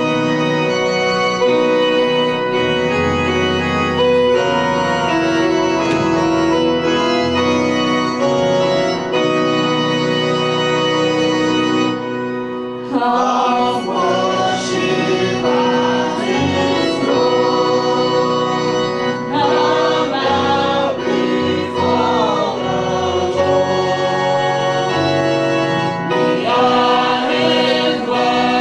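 Organ playing a hymn tune alone for the first twelve seconds or so, then a congregation comes in singing the hymn over the organ accompaniment.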